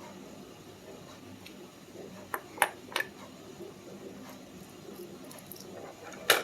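Sharp clicks and taps of small lock parts being handled while a dimple lock is taken apart: three clicks close together a little past two seconds in, and one louder click near the end.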